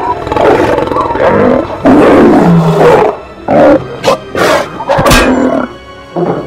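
Monster roaring and growling sound effects in repeated loud bursts over music, with a sharp thud about five seconds in.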